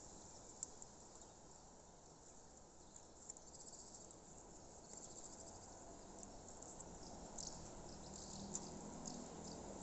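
Faint chirping of crickets: short high trills repeating irregularly, over a low steady background hiss.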